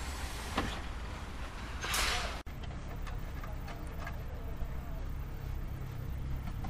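Construction-site ambience: a steady low rumble, with a short hissing whoosh about two seconds in. The sound cuts off abruptly and resumes with faint ticks and knocks.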